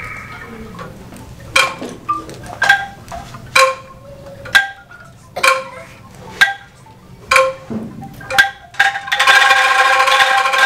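Angklung ensemble: tuned bamboo angklungs shaken one note at a time, picking out a slow melody of short rattling notes about one a second. About nine seconds in, the whole ensemble shakes together in a loud, continuous rattling chord.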